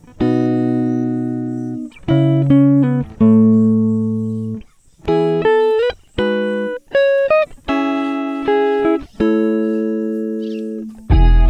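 Guitar music: plucked chords, each ringing out and fading before the next, changing about every second.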